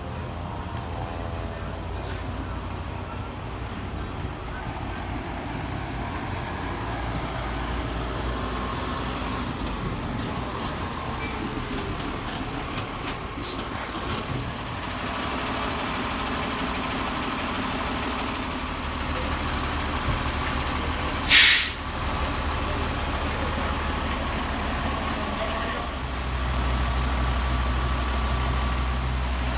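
Pierce fire engine's diesel engine running as the truck pulls up close and stops, its hum growing louder near the end as it idles. A short, sharp air-brake hiss comes about two-thirds of the way through, and a brief loud burst of noise comes near the middle.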